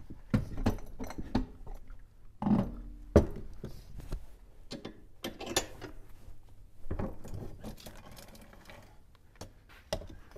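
Steel saw chain links clinking and rattling as a Husqvarna X-Cut chain is worked off a chainsaw's bar and sprocket by hand, with scattered clicks and knocks and a sharp click about three seconds in.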